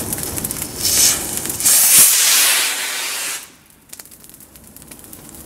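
A firework effect hissing loudly as it burns and rises, with one sharp pop about two seconds in. The hiss cuts off suddenly and gives way to faint scattered crackles.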